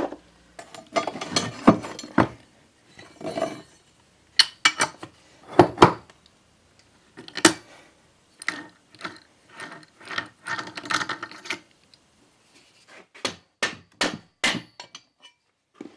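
Metal hand tools clicking, clanking and knocking against the flywheel and flywheel nut of a 1958 Briggs & Stratton Model 6B engine as the nut and flywheel are worked loose: a string of irregular separate knocks and clicks, busiest about two-thirds of the way in.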